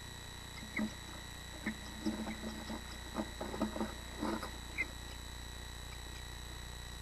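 Bluebirds moving about inside a wooden nest box: short scratches and knocks of claws and bodies against the wood and the nest grass, busiest between about three and four and a half seconds in as the male lands at the entrance hole. A steady electrical hum sits underneath.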